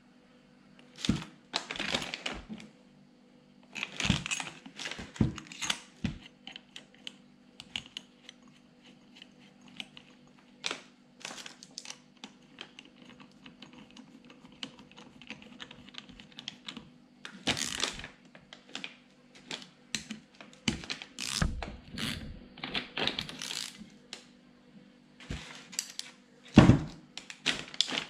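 Irregular clicks, taps and metallic knocks of a Peugeot-Citroën HDI 136 starter motor being handled and reassembled by hand, its housing and a long bolt or rod knocking and clinking, in clusters with pauses between.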